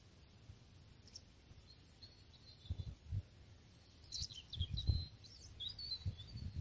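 Small birds chirping in short high calls, mostly clustered in the second half, over a faint steady hiss. Low rumbling thumps come a few times, the loudest about five seconds in.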